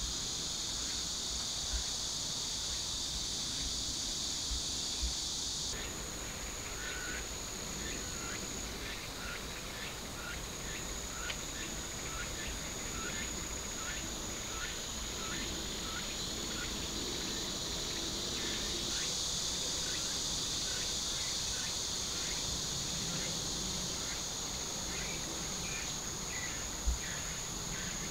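Steady, high-pitched outdoor insect chorus. From about six seconds in, a run of short, repeated chirps sounds over it, and a single low bump comes near the end.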